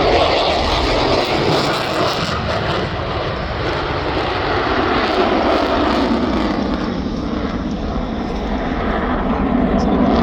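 Jet noise from Blue Angels F/A-18 jets flying the show: a loud, steady rushing roar that eases a little in the middle and builds again near the end.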